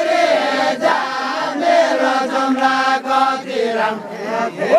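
A group of men singing a Deuda folk song together, with several voices holding long drawn-out notes. The singing thins and drops in loudness near the end.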